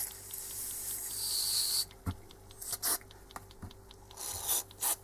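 Aerosol silicone spray hissing onto a Bosch common-rail pressure control (DRV) solenoid valve: a first spray of nearly two seconds, then short bursts near the end. The valve, pulsed by a signal generator so the lubricant works inside it, ticks rapidly and evenly underneath, with a few sharp handling clicks in the middle.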